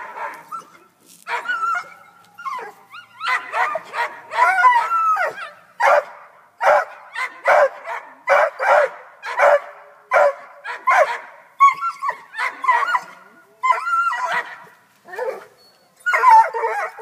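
Black and tan coonhound yelping and whining excitedly at a cat it has treed. Its high calls rise and fall, with a run of short, regular barks about two a second in the middle.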